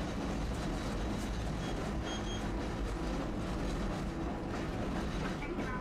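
Tosaden streetcar running along its track: a steady rumble of motor and steel wheels on rail, heard from inside the car.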